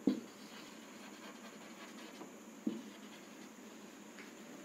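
Marker pen writing on a whiteboard: faint scratching strokes, with a couple of brief louder strokes near the start and about two and a half seconds in.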